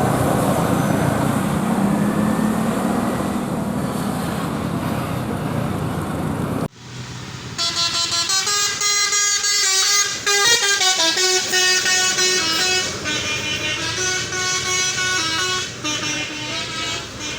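Engine and road noise of a passing bus, then after a sudden cut a bus's telolet basuri musical horn playing a tune of many short stepping notes for about ten seconds.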